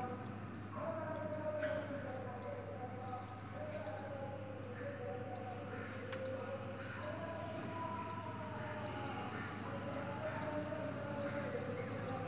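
Wagtails chirping: a steady series of short, high, falling chirps, about two a second.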